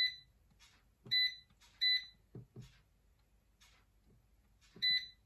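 Cosori air fryer's touch control panel beeping as its temperature and time are keyed in: four short, high beeps, the last near the end, with a few soft finger taps on the panel in between.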